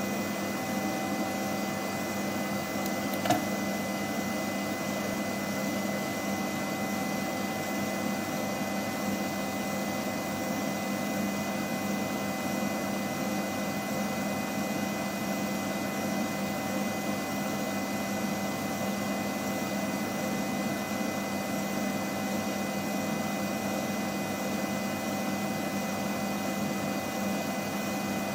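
Steady machine hum with several held tones over a hiss, broken once by a single sharp click about three seconds in.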